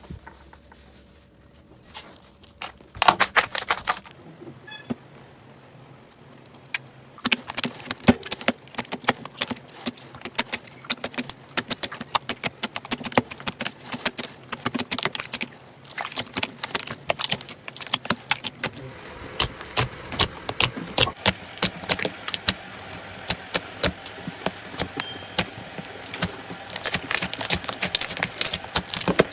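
Slime being squeezed and worked by hand, giving dense runs of sticky clicks and crackling pops. A short burst comes about three seconds in, then the crackling runs almost without a break from about seven seconds in.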